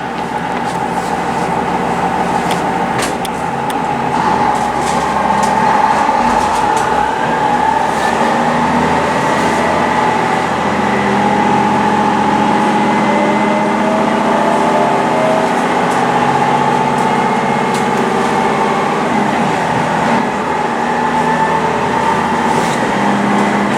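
A vehicle running steadily, heard from inside, with a constant whine and a few slow rises in pitch.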